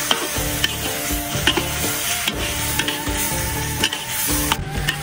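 Metal spatula stirring and scraping food around a large wok, with the sauce sizzling as it fries. Sharp clicks come now and then as the spatula knocks against the wok.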